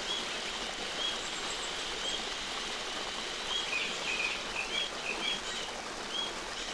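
Rufous-tailed jacamar calling: short, high notes with a slight upward hook, about one a second, and a quicker run of notes in the middle, over a steady background hiss.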